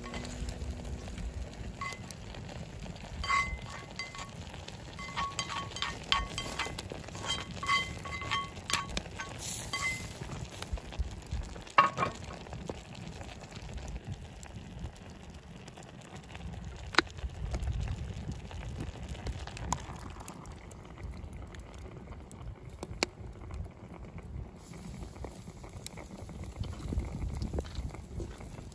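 Camp cooking: a metal utensil clinking against a pot, a dozen or so ringing clinks in the first ten seconds and a few single knocks later. Under them runs a steady low rush like a simmering pot or a fire.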